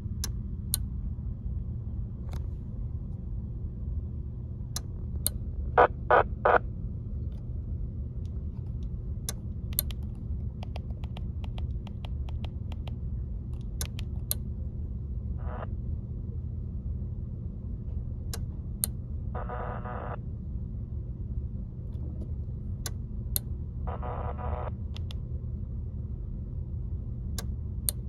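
PNI Escort HP 82 handheld CB radio receiving a 27.255 MHz beacon: steady static from its speaker, broken by short data bursts of frequency-shift-keyed audio about every four and a half seconds, three of them evenly spaced in the second half. Sharp clicks and taps throughout, the loudest a quick set of three about six seconds in.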